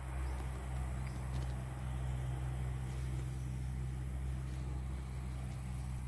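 Outdoor ambience: a steady low hum with faint insect calls behind it.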